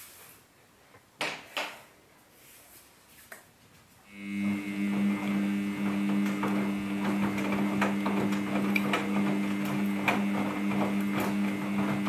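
Samsung Ecobubble front-load washing machine partway through its wash cycle. The drum is at rest with a couple of faint knocks, then about four seconds in the drum motor starts and runs with a steady hum and a higher whine, over the swish of wet laundry tumbling in the drum.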